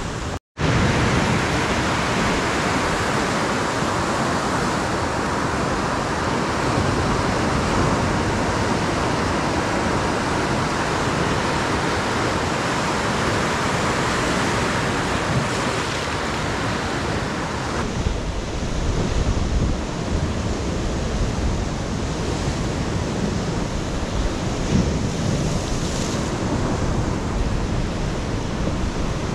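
Ocean surf breaking and washing in a steady wash of noise, with wind blowing on the microphone. The sound drops out for an instant about half a second in, and about eighteen seconds in it shifts to a deeper, gustier wind rumble with less surf hiss.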